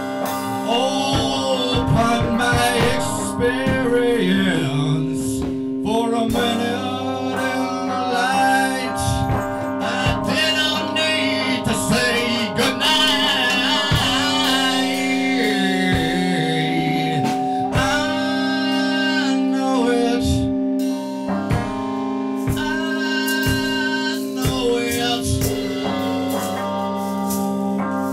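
Music: a song with singing over guitar and held, steady chords.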